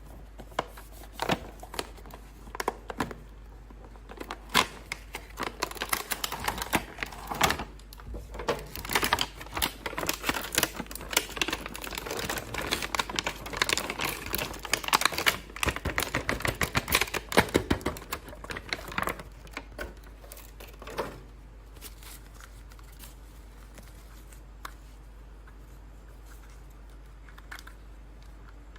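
Toy packaging being handled and opened by hand: a run of sharp plastic clicks and crackles, scattered at first, then dense and rapid in the middle, then dying away about two-thirds of the way through.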